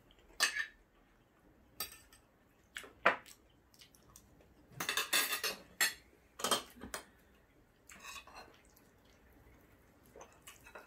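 Spoons and forks clinking and scraping against ceramic plates and bowls as two people eat. The strokes are sharp and scattered, with a busier run of clatter about five seconds in.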